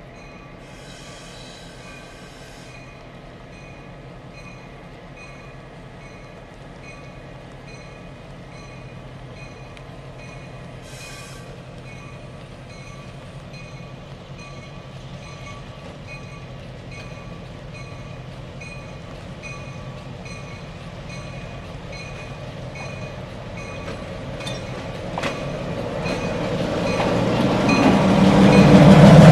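EMD SW7 diesel switcher locomotive, with its 12-cylinder EMD 567 engine, approaching slowly at the head of a short caboose train. Its engine and wheels are faint at first and grow steadily louder until it passes close by near the end. Two short hisses are heard, one about a second in and one about eleven seconds in.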